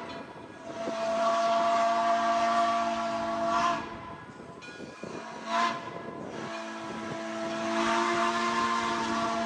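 Steam whistle of Frisco 1630, a 1918 Baldwin 2-10-0 locomotive, blowing the grade-crossing signal: a long blast, a short toot and another long blast, each a chord of several steady tones.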